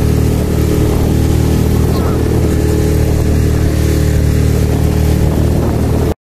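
Small outboard motor running steadily under way, a constant low drone, over wind and choppy water. It cuts off abruptly near the end.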